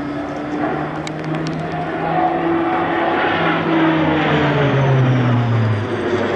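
Pilatus PC-12 NG single-engine turboprop (Pratt & Whitney PT6A-67P) flying a low display pass, its engine and propeller drone steady at first, then loudest and dropping in pitch about four seconds in as it passes overhead.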